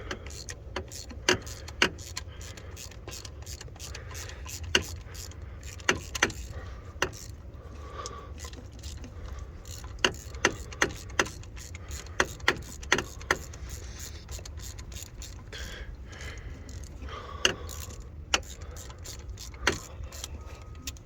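Scattered sharp metallic clicks and clinks of hand tools, an extension and a 3/8-drive socket set being handled, with a quick run of clicks about halfway through, over a steady low hum.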